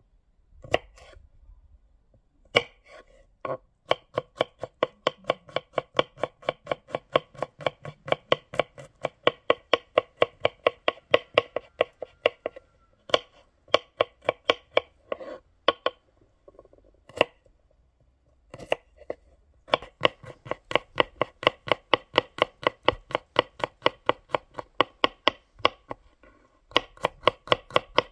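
Chef's knife chopping garlic cloves on a wooden cutting board: quick, even strikes about four a second, in long runs broken by short pauses and a few single cuts.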